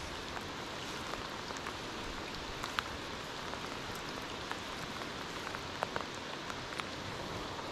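Steady rain falling on a river's surface, with scattered single drops ticking close by.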